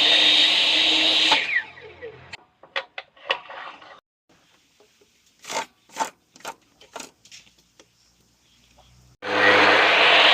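An electric woodworking power tool runs, then spins down with a falling whine about a second and a half in. Several sharp knocks and clicks of wood and tool being handled follow, and the tool starts up again near the end.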